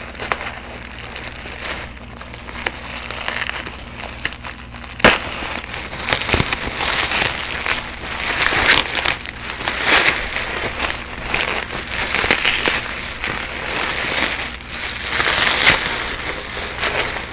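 Bubble wrap crinkling and crackling as hands work an item out of a tight bubble-wrap sleeve. There is a sharp click about five seconds in, and the rustling gets louder after that, coming in uneven waves.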